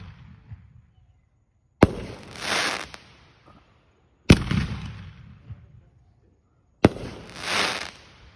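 Aerial fireworks going off: three loud bangs about two and a half seconds apart. Each bang is followed by a softer rush of noise lasting about a second.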